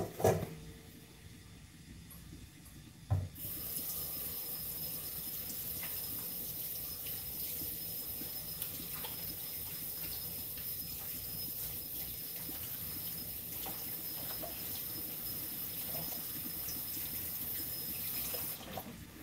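Kitchen tap running steadily for about fifteen seconds. It turns on suddenly a few seconds in and shuts off abruptly near the end, with a few faint knocks while it runs.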